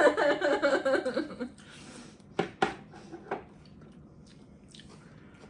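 A voice trailing off in the first second and a half, then three sharp clicks of tableware during a meal, with faint small ticks after.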